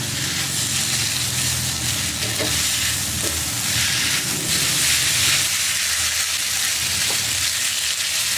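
Spaghetti with chicken and sauce sizzling steadily in a hot pan on a raised flame, stirred, with a few faint ticks from the stirring.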